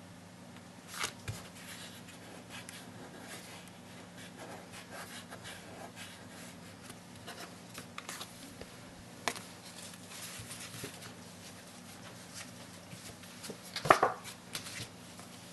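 Hands rubbing and pressing a clear plastic imaging sheet down onto stamped card stock to transfer the ink for a mirrored water reflection: faint scratchy rubbing and rustling with a few light taps. About fourteen seconds in there is a louder cluster of knocks as the sheet is lifted off the card.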